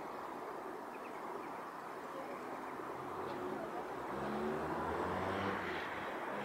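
Steady city traffic noise. About four seconds in, a motor vehicle's engine hum comes in low and grows louder.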